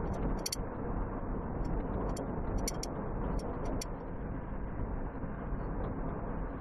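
Steady road and engine noise heard inside a moving vehicle's cabin, with scattered sharp clicks at irregular intervals, mostly in the first few seconds.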